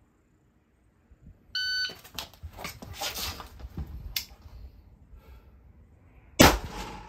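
A shot timer's start beep about a second and a half in, then the rustle and knock of a shooter dropping from standing to prone on concrete, then a single Ruger Gunsite Scout rifle shot near the end, the loudest sound, about 4.9 seconds after the beep.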